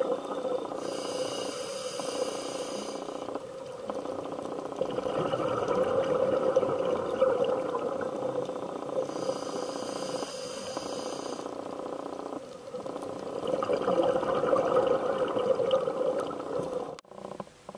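Scuba diver breathing through a regulator, heard through the camera's underwater housing, in a slow cycle. A hissing inhale comes about a second in and again about nine seconds in, each followed by a longer, rougher gurgle of exhaled bubbles.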